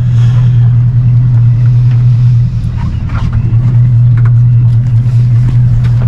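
Boat engine running with a steady low hum, easing off briefly about two and a half seconds in, with a few light knocks.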